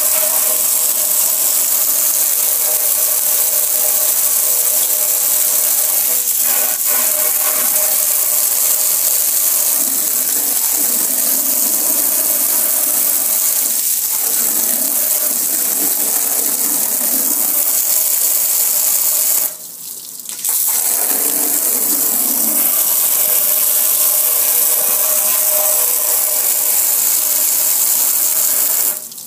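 Pressure washer spraying a jet of water onto a metal gas grill: a steady loud hiss and spatter with a steady underlying whine. The spray stops for about a second about two-thirds of the way through, then resumes, and cuts off again near the end.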